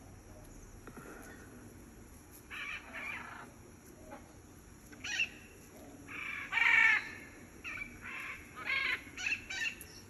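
Macaw calls: a series of harsh squawks starting about two and a half seconds in, the loudest about seven seconds in, with several shorter ones near the end.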